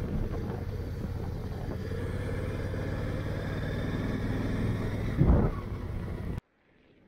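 Honda Africa Twin motorcycle's parallel-twin engine running at a steady cruise, with wind and road noise. There is a brief louder swell about five seconds in, then the sound cuts off abruptly about six seconds in.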